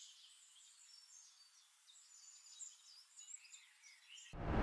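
Faint, high bird chirping, then near the end a sudden loud rush of noise that starts abruptly and fades.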